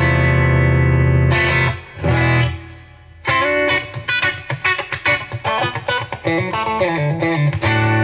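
Green Masterseries Telecaster-style electric guitar fitted with Lundgren Tele90 bridge and Vertigo neck pickups: a chord rings for nearly two seconds, a second short chord fades out, then about three seconds in comes a quick run of picked single notes.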